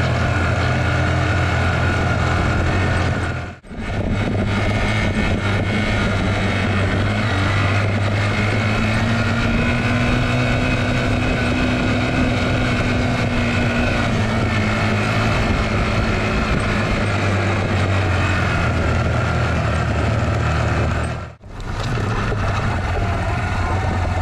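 A small 10-horsepower motorcycle engine running steadily under a heavy load while climbing a gravel track. Its note swells slightly in pitch and falls back midway. The sound cuts out briefly twice.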